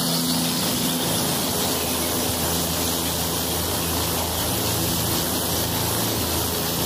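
Helicopter's turbine engine and main rotor running steadily while it hovers low and settles onto a landing pad: a constant rushing noise over a low, even hum.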